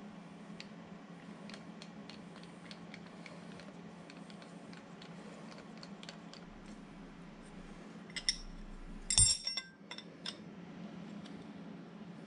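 Scattered small metallic clicks of a steel T-bolt and nut being fitted to a milling-machine footstock, then a few ringing clinks of an open-end wrench against the steel footstock and nut, the loudest about nine seconds in. A steady low hum runs underneath.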